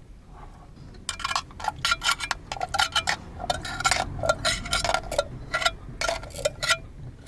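A run of quick, irregular clinks and taps of small hard objects, several a second, starting about a second in.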